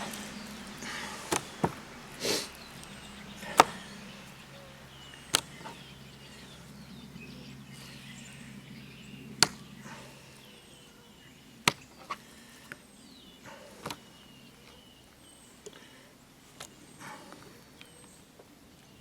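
Fish filleting with an electric fillet knife: sharp knocks and taps of the knife and fish against the cutting surface, over a faint steady hum from the knife's motor that stops about halfway through.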